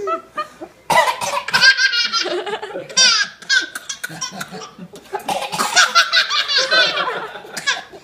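A one-year-old baby laughing hard in two long, rapid belly-laugh bouts, the first starting about a second in, with coughs breaking in: he is laughing so hard it makes him cough.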